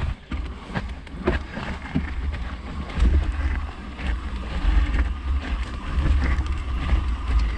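Mountain bike rolling down a dirt trail: wind buffeting the microphone, heavier from about three seconds in, with tyre noise on dirt and stones and scattered knocks and rattles from the bike over bumps.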